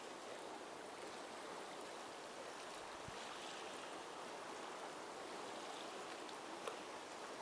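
Faint, steady wash of small waves on open estuary water, an even hiss with no single splashes standing out.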